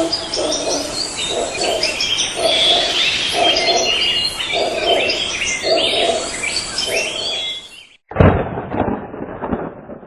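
A chorus of birds singing and chirping, with a lower call repeating about once a second underneath. About eight seconds in, it cuts off abruptly and loud crackling thunder begins.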